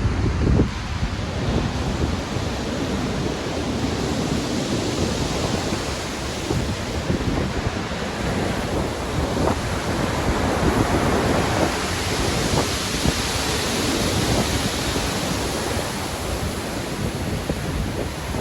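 Stormy sea: ocean waves crashing and surf washing continuously, with wind, swelling a little louder about halfway through.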